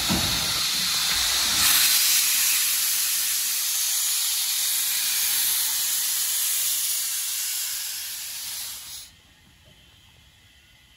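Steam locomotive venting steam in a loud, steady hiss that swells about two seconds in and then cuts off suddenly about nine seconds in.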